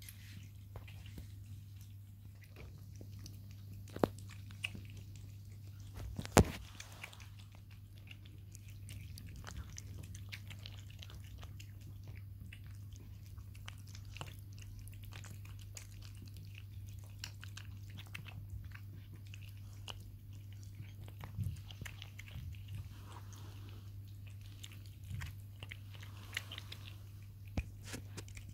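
British Shorthair cats eating shredded wet tuna: soft chewing and licking with many small clicks, and two sharper clicks about four and six seconds in. A steady low hum runs underneath.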